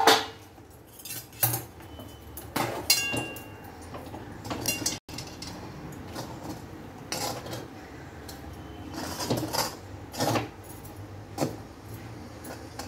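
A metal spatula scraping and clinking against a steel kadhai in irregular strokes, a few seconds apart, as thick steamed rice-flour dough (ukad) is stirred and broken up.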